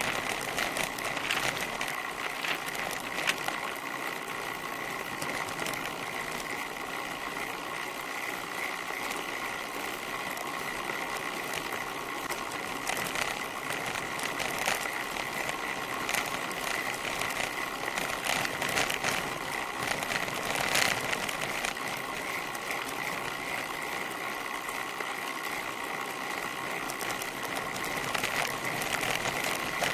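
Bicycle rear freehub buzzing steadily as the bike coasts downhill, over tyre noise on tarmac, with a few sharp clicks.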